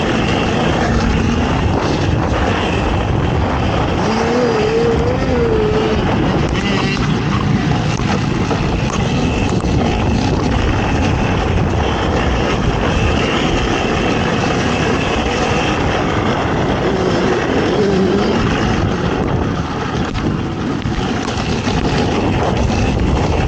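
Racing ATV engine running hard, its pitch rising and falling as the throttle is worked, over a dense rushing noise of the ride.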